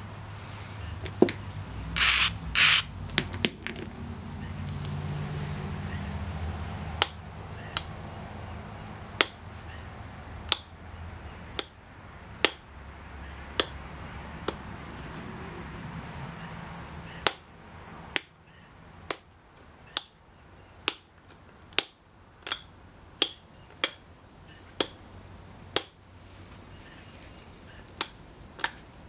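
Pressure flaking a chert preform with a copper-tipped flaker: sharp clicks as flakes snap off the edge, a louder ringing cluster about two seconds in, then a few scattered clicks, then about one a second through the second half.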